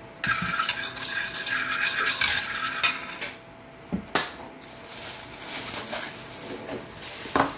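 Metal spoon stirring and scraping round a ceramic bowl for about three seconds, mixing a sugar, soy sauce and cooking wine marinade. Then come a couple of sharp clinks as the spoon is set down, a stretch of plastic bag crinkling as mushrooms are lifted out, and a sharp knock near the end.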